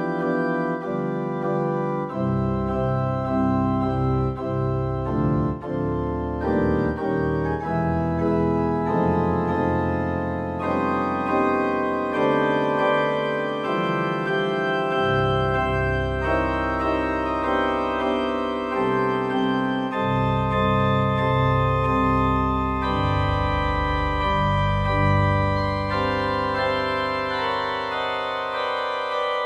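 Electronic organ playing an improvised piece: sustained chords over held deep bass notes, the harmony changing every few seconds.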